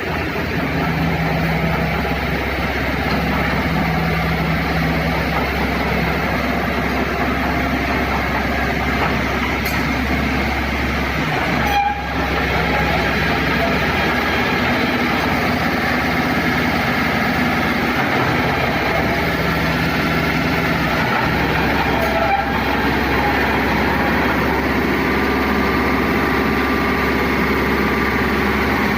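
Mitsubishi BD2G bulldozer's diesel engine running with a steady drone, with a brief knock about twelve seconds in and another about twenty-two seconds in.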